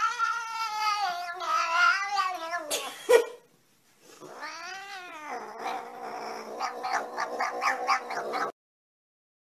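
Domestic cat yowling in long, drawn-out calls: one long yowl, a sharp knock about three seconds in, then a yowl that rises and falls and a wavering, pulsing one that cuts off abruptly.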